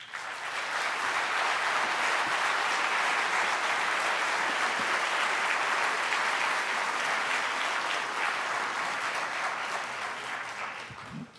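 Audience applauding: dense, steady clapping that starts all at once and dies away over the last few seconds.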